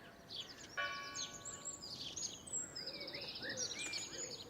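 Several small birds singing at once: high chirps, quick trills and short whistled notes overlapping.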